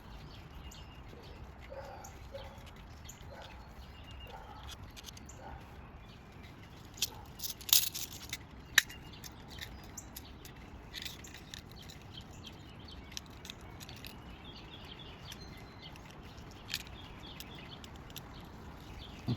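Faint birds chirping in the background, with a few sharp clicks and taps near the middle, the loudest a cluster about eight seconds in and a single click a second later.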